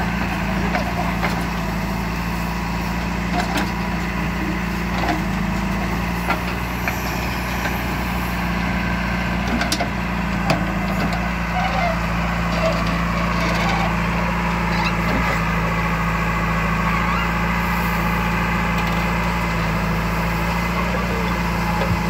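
JCB 3DX backhoe loader's diesel engine running steadily under load while the backhoe arm digs and swings, with scattered short knocks and clanks from the bucket and soil.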